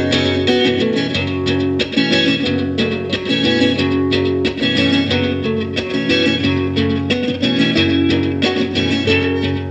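Guitar music: a continuous stream of plucked notes.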